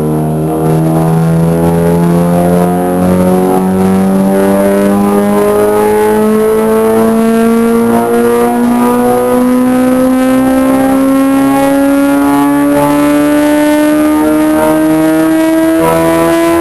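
Yamaha R6 sport bike's 600 cc inline-four engine on a motorcycle chassis dyno, making a pull under load. Its pitch climbs slowly and steadily through the revs in one long sweep, with no gear change or let-off.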